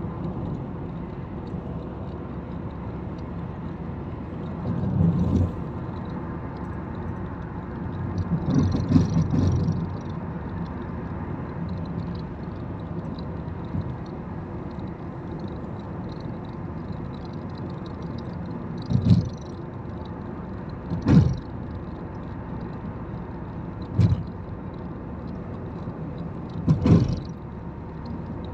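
Steady road and engine noise heard from inside a moving car at highway speed, broken by about six short, louder sounds spread through the stretch, the longest a cluster lasting about a second near the middle.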